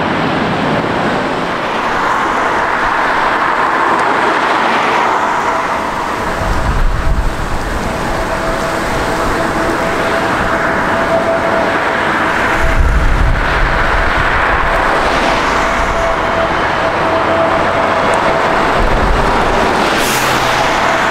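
Jet airliner engines running loud and steady, a broad rushing noise with a steady whine coming in about seven seconds in. Deep rumbles swell around six seconds and again around thirteen seconds in.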